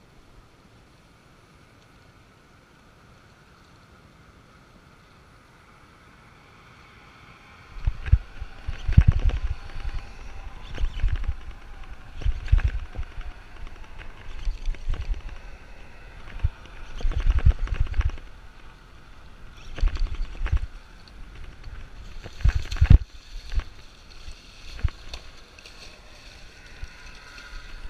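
Irregular rumbling thumps and buffeting on a body-worn action camera's microphone, starting about eight seconds in, as the camera is jostled while the angler works the rod. Under them a faint steady motor hum.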